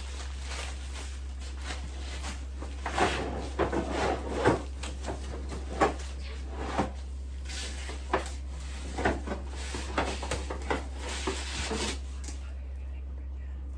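Irregular knocks, clicks and rustles as flat-pack desk parts, screws and packaging are handled and pulled out of the box, over a steady low hum.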